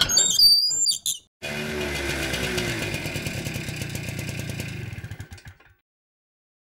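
Small motor scooter engine idling with a steady, even putter, cutting off about a second before the end.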